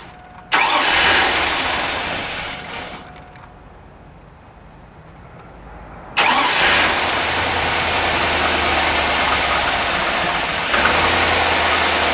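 Chevrolet 5.3-litre V8 of a 2001 Tahoe starting: a sudden start about half a second in that fades away over a few seconds, then a second start about six seconds in that keeps running, a little louder near the end. It runs rough on low fuel pressure, about 25 psi against 55 to 62, a lean condition from a failing fuel pump.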